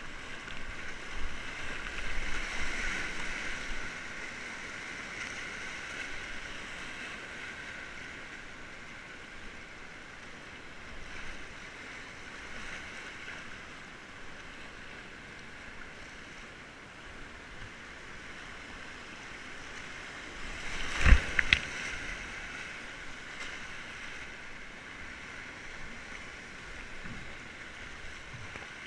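Whitewater rapids rushing steadily around a kayak, a little louder in the first few seconds. About two-thirds of the way through, a short burst of sharp knocks stands out as the loudest sound.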